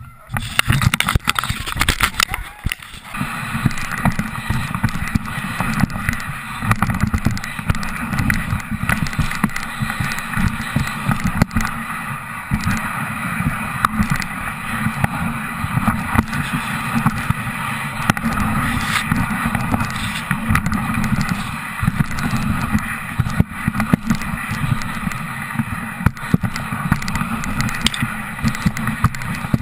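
Dog sled moving over a packed snow trail: a steady scraping hiss of the runners, with frequent knocks and rattles from the sled frame under the mounted camera and a low rumble underneath.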